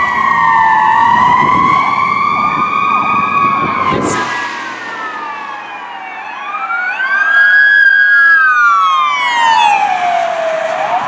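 Fire engine's siren wailing slowly up and down. After a brief click about four seconds in, a second siren on a fire chief's pickup truck rises and sweeps, then falls steeply in pitch as the pickup passes close by.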